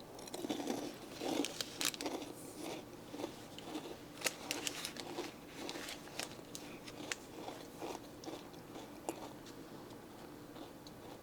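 Biting into and chewing a chocolate crackle, a crisped-rice and coconut treat set with cocoa and coconut oil. The crunching is busiest in the first couple of seconds, then thins to sparser crackles of chewing.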